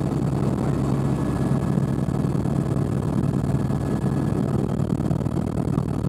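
Sightseeing helicopter's engine and rotor running steadily in flight, heard inside the cabin as a constant low drone.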